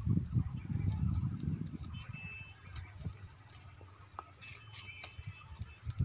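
Cast net being gathered and sorted by hand: soft rustling of the mesh and scattered light clicks from its weighted lead line, over a low rumble that fades after about two seconds. A few faint high chirps are heard.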